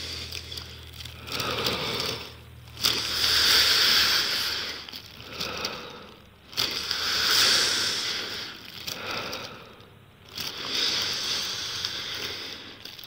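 Slow, heavy breathing through a plastic bag worn over the head, the bag crinkling with each breath; about four long breaths, each swelling and fading over a couple of seconds.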